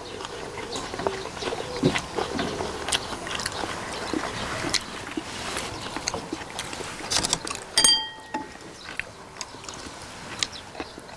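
People chewing boiled pig's feet (jokbal) with wet smacking, while chopsticks click against dishes. A sharp clink rings briefly about eight seconds in.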